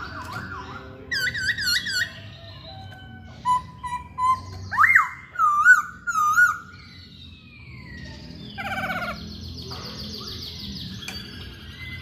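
Black-throated laughingthrush (poksay Hongkong) singing: a run of varied, loud whistled phrases of looping up-and-down notes, then a quicker chattering trill near the end.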